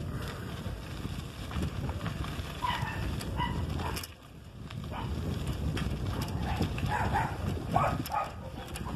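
Footsteps crunching along a sandy dirt road, with wind buffeting the microphone. A dog barks faintly several times, a few at a time, about a third of the way in and again near the end.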